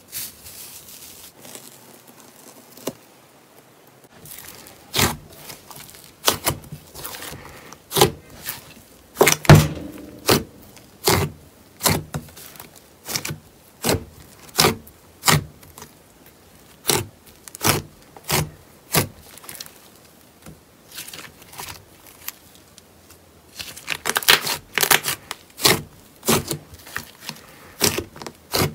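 Fingers poking and stretching thick white slime, making a string of sharp clicking pops about one or two a second as air pockets in the slime burst. The pops come in a dense flurry near the end. A few quiet seconds of soft rubbing come before them.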